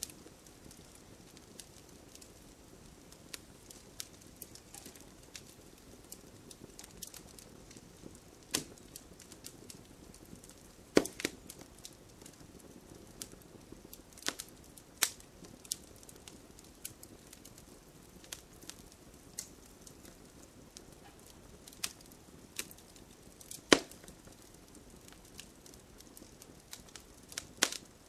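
Fireplace fire crackling: a soft steady hiss with irregular sharp pops and snaps, the loudest about 11 seconds and about 24 seconds in.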